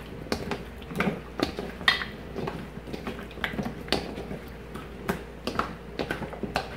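Frozen meatballs being stirred through a thick soup mixture in a large stainless steel bowl: irregular clacks and knocks of the meatballs and the stirring utensil against the metal, about one or two a second.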